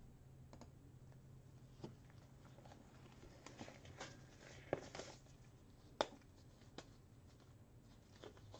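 Faint scattered clicks and taps over a low steady hum, the two sharpest a little before the middle and about two-thirds through.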